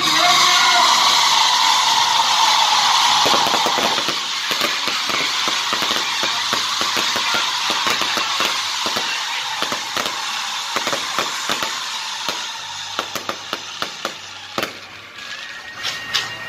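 Aerial fireworks going off: a loud rushing hiss of launching shells under many sharp bangs and crackles. The hiss fades over the second half, and a quick run of crackling pops comes near the end along with a steady high whistle.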